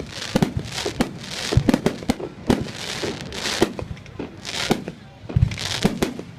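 Fireworks going off in quick, irregular succession: a dense string of bangs and pops with hissing, crackling bursts, and a deeper boom about five seconds in.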